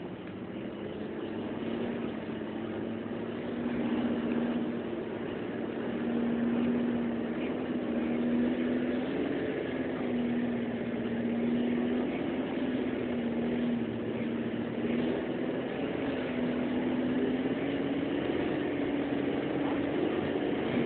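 Bus engine running steadily, heard from inside the bus: a droning hum that wavers slightly in pitch, over road noise. It grows louder over the first two seconds.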